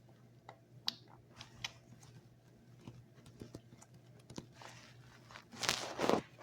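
Scattered faint clicks and taps, then louder noisy handling sounds for under a second near the end.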